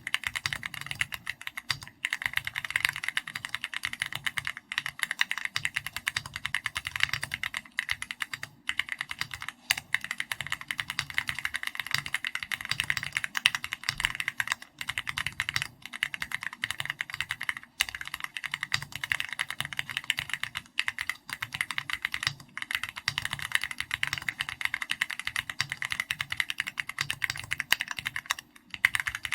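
Continuous fast typing on a custom mechanical keyboard with Keychron red linear switches and 3D comic-style keycaps in an SPM AL66B housing: a steady stream of keystroke clacks with short pauses every few seconds.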